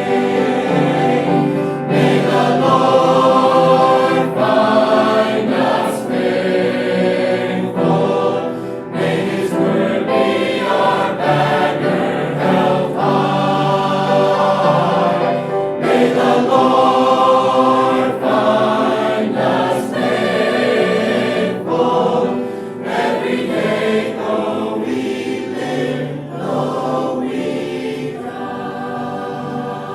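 A choir singing a gospel song, getting a little quieter near the end.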